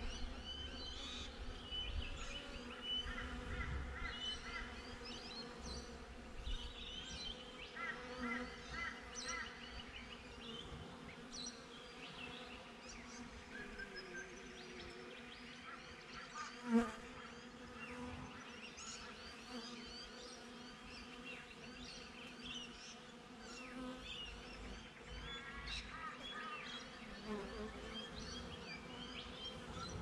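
Honey bees buzzing around the hive entrance: a steady, soft drone of many bees in flight. There is one brief, louder swell about 17 seconds in.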